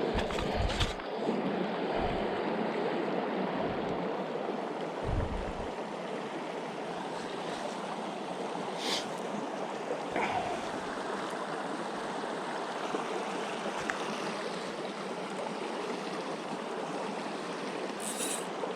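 Small mountain creek running steadily over rocks, a constant rush of water. A few low thumps break in near the start and about five seconds in.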